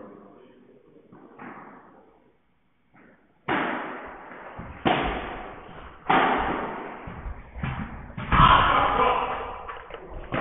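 Padel rally: the ball is struck back and forth with solid padel rackets and bounces off the court, giving a series of sharp, echoing pops. A few faint hits come in the first seconds, then about six loud ones in quick succession from a third of the way in.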